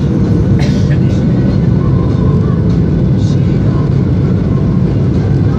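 Steady cabin roar of an airliner on its landing approach, heard inside the cabin beside the wing: the turbofan engine and rushing air making a loud, even, deep rumble.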